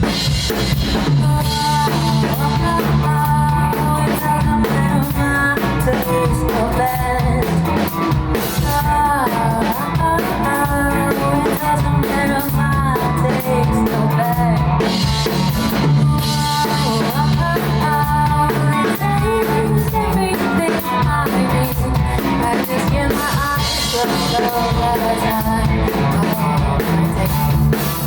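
Pop or rock song with drum kit, bass and guitar, and a singing voice over it.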